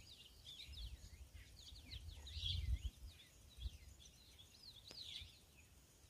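Faint bird song: many short chirps and whistled up-and-down notes from several birds. A low rumble, strongest around the middle, sits beneath them.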